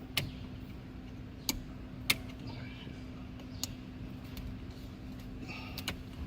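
Several sharp clicks and knocks, a second or so apart, as the ignition switch is pried out of the Honda Accord's steering column, over a steady low hum.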